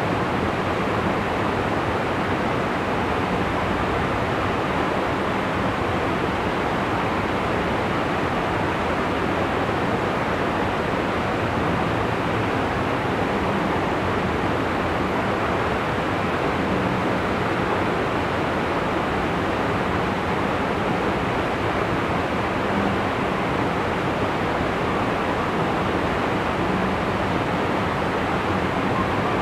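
Steady, unbroken rush of flowing canal water.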